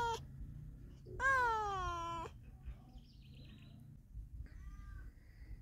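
Domestic cat meowing: the end of one meow at the very start, then a long, loud meow about a second in that falls in pitch, and a faint short call near the end.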